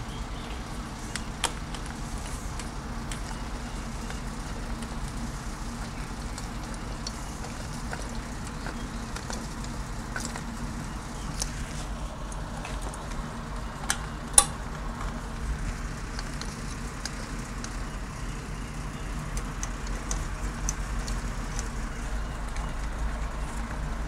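Scattered light clicks and knocks of the plastic air-cleaner base being fitted onto the carburetor of a Honda GCV160 mower engine, over a steady low hum. The sharpest click comes about fourteen seconds in.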